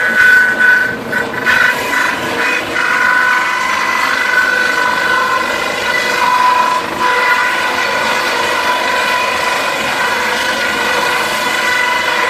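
Wood crusher running at speed with a steady high-pitched whine over a rushing noise. A few sharp knocks come in the first couple of seconds.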